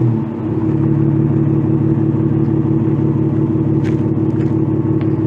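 A 2009 Dodge Charger SXT's 3.5-litre V6 idling steadily through a Flowmaster 44 Delta Flow muffler, resonator deleted, out dual 3-inch tips, heard at the tailpipes. The revs drop back and settle into idle in the first half second.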